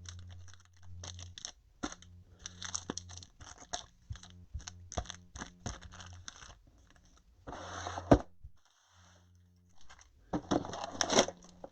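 Trading-card hobby boxes being opened and their wrapped packs handled, giving irregular crinkling, tearing and sharp taps.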